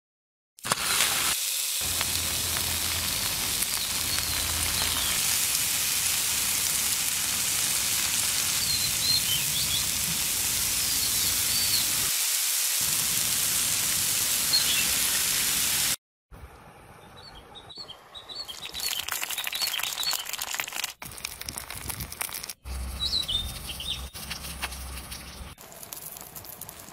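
Food sizzling on a stone slab heated over a wood fire, a steady hiss with birds chirping above it. About sixteen seconds in it cuts to a quieter sizzle with light crackling and more bird calls.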